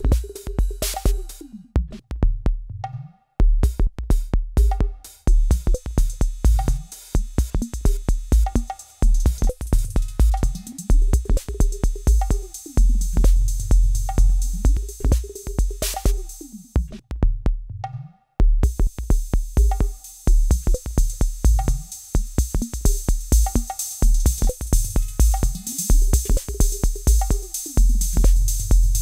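Roland TR-6S drum machine playing a looping electronic beat: a heavy kick, ticking hi-hats and a repeating pitched drum that glides down in pitch. The beat cuts out briefly twice, about 3 and 18 seconds in, and after the second break the hi-hats come back brighter and louder as the hi-hat instrument is changed.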